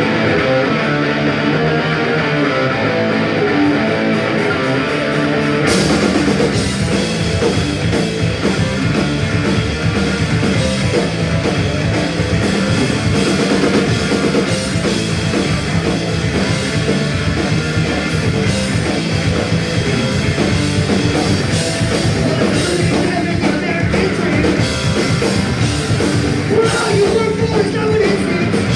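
Punk rock band playing live through a club PA. Electric guitar plays alone at first, then drums and the full band crash in about six seconds in and drive on at a fast, steady pace.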